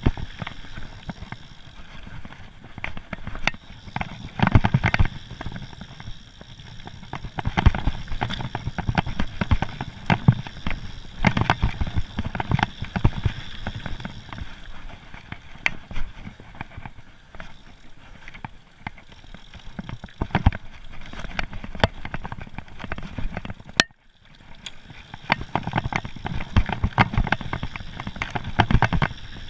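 Mountain bike riding fast down a dirt forest trail: tyres rolling over dirt and roots with constant irregular rattling and knocks from the bike. The sound drops out briefly about three-quarters of the way through.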